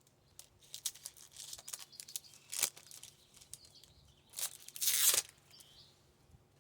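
Foil wrapper of a Topps baseball card pack being crinkled and torn open: light crackling with a short rip partway through and a longer, louder rip near the end.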